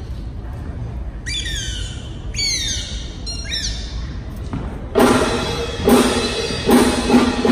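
Comic sound effects for a clown act: four short, high, squeaky whistles, each falling in pitch. From about five seconds in, the live circus band with drum kit plays loud accented hits, several times over.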